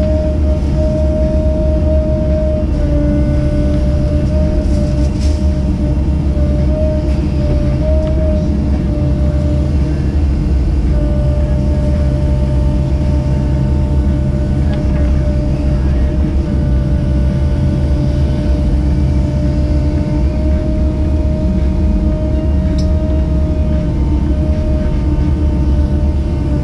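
Caterpillar 307E2 mini excavator's diesel engine running steadily, heard from inside the cab, with a steady high whine over the low drone that shifts slightly in pitch as the boom and bucket are worked.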